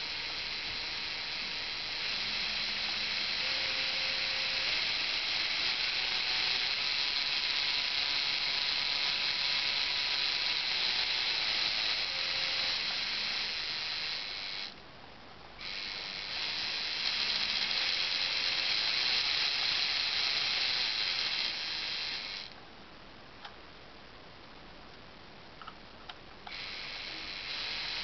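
Lego Technic model piston engine running, a small motor and plastic gears turning the pistons with a steady whir. It cuts out for about a second around the middle, and again for about four seconds near the end with a few faint clicks, then starts up again.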